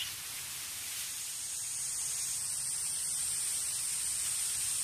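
Wind in tall dry reeds: a steady rustling hiss that swells slightly over the first couple of seconds and then holds.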